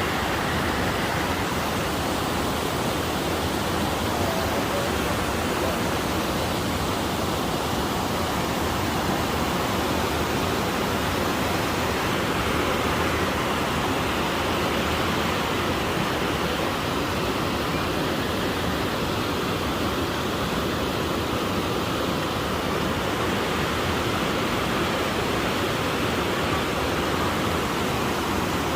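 A mountain river flowing, a steady, even rush of water that keeps on without change.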